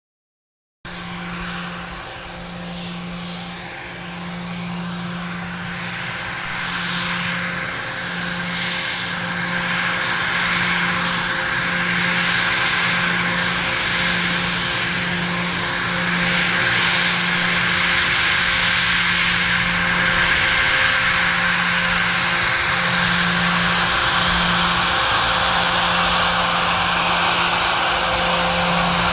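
Bombardier Global 6000 business jet's twin Rolls-Royce BR710 turbofans running at taxi power: a steady whining hiss over a low hum. It starts just under a second in and grows louder as the jet taxis closer.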